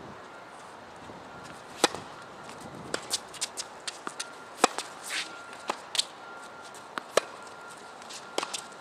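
Tennis rally on a hard court: a series of sharp pops from racket strings striking the ball and the ball bouncing, the loudest about two seconds in, near the middle and about seven seconds in.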